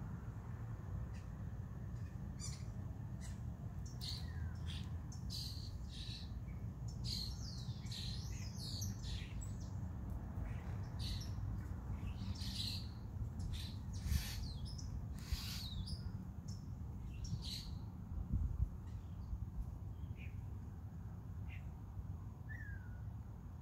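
Birds chirping and calling in many short, quick notes, busiest through the middle stretch and thinning toward the end, over a steady low background rumble.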